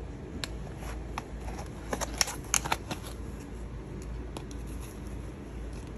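Thin plastic deli cup lid being pried off by hand, a run of sharp crackling clicks that is densest and loudest about two to three seconds in, then a few faint clicks.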